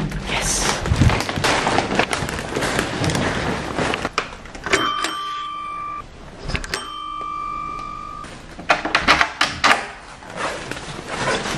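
Doorbell rung twice, each ring a steady tone lasting about a second and a half, the second coming about two seconds after the first. Before the rings and after them come clattering and rustling of things being carried and handled.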